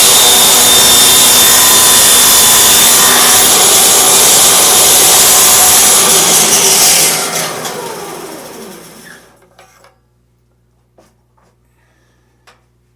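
Table saw running at full speed while cutting through 3/4-inch plywood held at 45 degrees in a sled. About seven seconds in it is switched off and the blade spins down over a couple of seconds, its tone falling, followed by a few light clicks and knocks.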